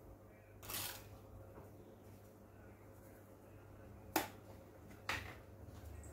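Small handling sounds at a kitchen counter over a faint steady hum: a short rustle about a second in, a sharp click near four seconds and a brief scrape a second after it.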